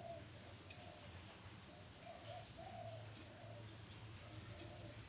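Spotted dove cooing in a run of short, low, soft notes. A few brief high chirps from small birds come about one and a half, three and four seconds in.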